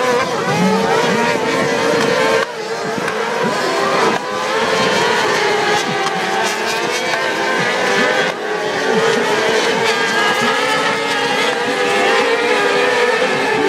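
A field of kart cross buggies racing, several high-revving motorcycle engines at once, their overlapping pitches rising and falling as the cars accelerate and shift through the corners.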